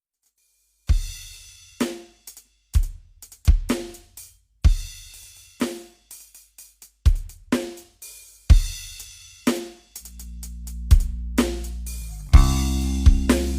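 Rock music opening on a drum-kit beat alone, with kick and snare hits and cymbals. A bass line comes in about ten seconds in, and a fuller band sound starts near the end. It is music played for a sound-system check.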